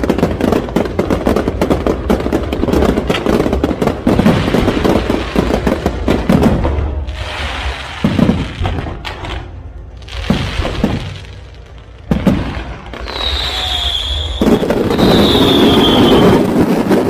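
Fireworks going off: a dense run of rapid crackling bangs, then separate bursts, and near the end two high whistles falling slightly in pitch.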